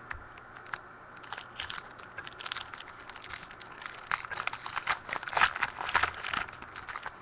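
Crinkling and tearing of a 2013 Prestige football card pack's wrapper as it is ripped open, an irregular crackly rustle that starts about a second in and grows busier and louder toward the end.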